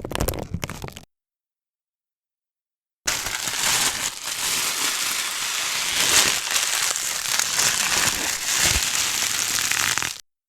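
Thin, stiff plastic bags crinkling and rustling: a short burst of crinkling in the first second, then, after a break, a long stretch of continuous crackly rustling.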